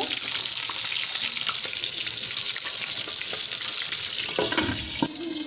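Boneless milkfish (bangus) frying in hot oil in a pan under a partly lowered lid: a steady sizzle with many sharp crackling pops of spattering oil.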